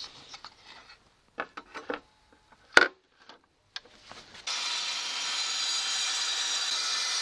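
Knocks and clicks of a plunge saw being handled and set on its aluminium guide rail, with one sharp click, the loudest sound, near three seconds in. About four and a half seconds in, the plunge saw is running steadily, cutting a wooden wall panel along the rail.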